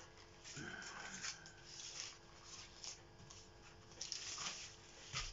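Baking paper crinkling and rustling in irregular bursts as a sheet of puff pastry is smoothed and pressed out on it by hand.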